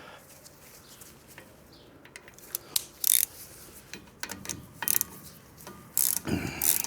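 Hand socket ratchet clicking in short runs as the driveshaft's 5/8 bolts are run in. The first half is quiet, and the runs of clicks come from about halfway through on, growing louder near the end.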